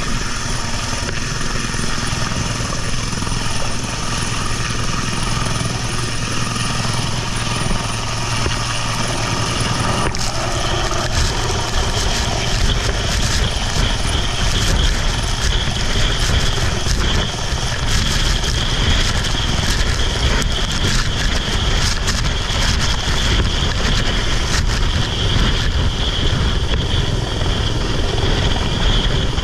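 Engines running steadily and loudly, with a change in the engine sound about a third of the way in.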